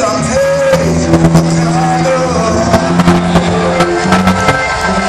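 Live band of bass, drum kit, electric guitar and keyboards playing amplified through a PA, recorded from within the audience. Held notes change in pitch over a steady beat of sharp drum strikes.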